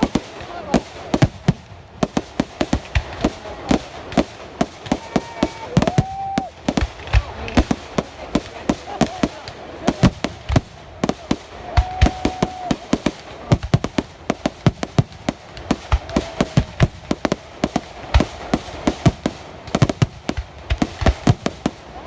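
Fireworks display: a continuous, irregular barrage of sharp bangs and crackles, several reports a second.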